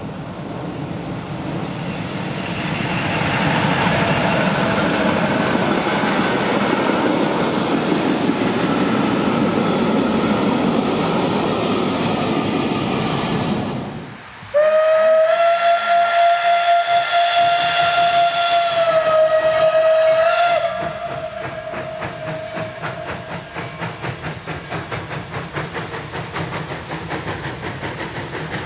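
An electric locomotive and its freight train rolling past, the noise swelling over the first few seconds. After a cut, a small steam tank locomotive sounds one long steady whistle of about six seconds, rising slightly in pitch just before it stops, then its regular exhaust beats go on as it approaches.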